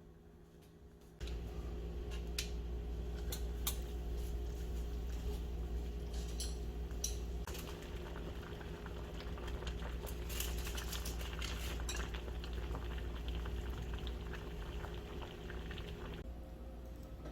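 A kitchen appliance starts about a second in and runs with a steady low hum, while utensils clink against dishes and pans.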